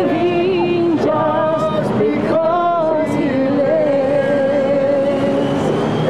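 A voice singing long, steady held notes, over street traffic noise.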